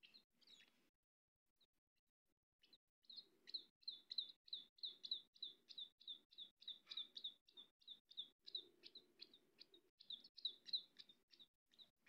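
Baby birds chirping: a rapid run of short, high chirps, about three or four a second, starting about three seconds in.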